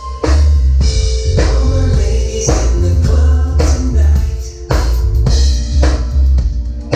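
A live band playing: drum kit hits over a heavy bass line, with held chords above.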